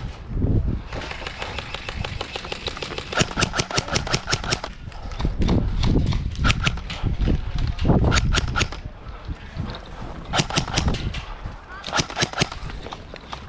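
Airsoft guns firing in several bursts of rapid, evenly spaced shots, with rustling and footstep noise underneath.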